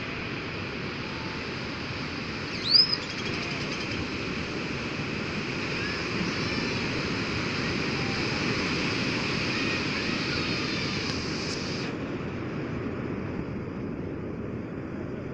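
Sea waves washing onto a beach: a steady surf hiss that swells and eases. A short, sharp, high chirp about three seconds in is the loudest moment, and the higher part of the hiss cuts off suddenly about twelve seconds in.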